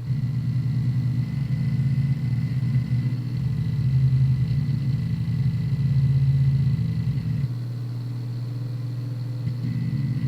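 Hard disk drive chattering as its read/write heads seek rapidly back and forth during a defrag, a dense buzzing rattle over a faint steady high whine. About two thirds of the way through the chatter eases and gets a little quieter.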